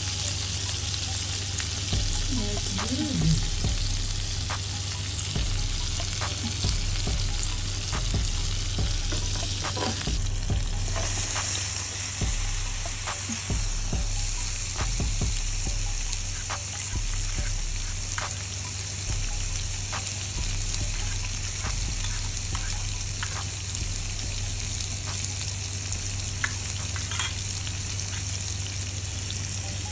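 Prawns, then bean sprouts and spring onions, sizzling in oil on an electric hot-pot grill plate, with scattered light clicks.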